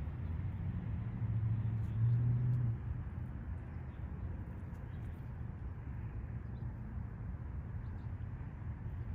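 Steady low outdoor background rumble, swelling louder for a couple of seconds about a second in, with a few faint ticks.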